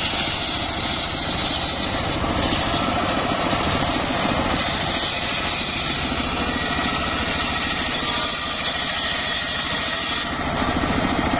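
Engine-driven circular sawmill blade ripping a mahogany slab, with the engine running steadily underneath. The high hiss of the cut comes and goes: it is strong at the start, fades, then returns from about the middle until near the end.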